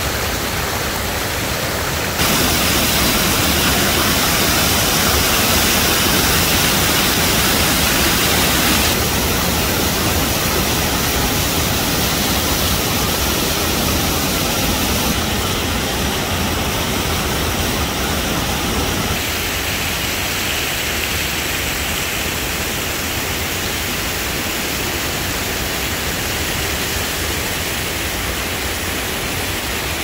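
Water rushing over low waterfall cascades and rapids on rock ledges, a steady loud roar. Its loudness jumps up or down abruptly a few times.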